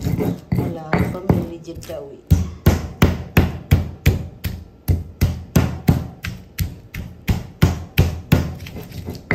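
Stone pestle (ulekan) pounding and grinding garlic and shallot on a flat stone mortar (cobek), stone knocking on stone. The strokes are uneven at first, then from about two seconds in settle into a steady beat of about three sharp knocks a second.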